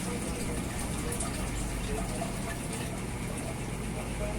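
Pot of pork chop and potatoes in broth boiling on the stove: a steady, even watery noise.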